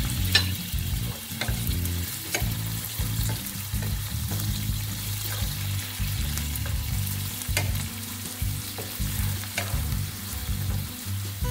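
White cooking wine sizzling in hot olive oil with scallions and garlic in a nonstick skillet, stirred with a wooden spoon that now and then knocks against the pan.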